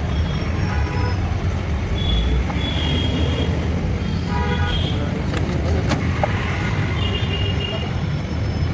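Road traffic rumbling steadily, with several short vehicle horn toots.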